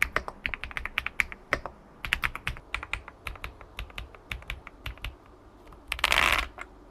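Typing on an ElecFox Linky 87 mechanical keyboard with pre-lubed 5-pin switches and a nine-layer build: quick, irregular keystroke clacks with a few short pauses. The typing stops near the end and a short rushing noise follows.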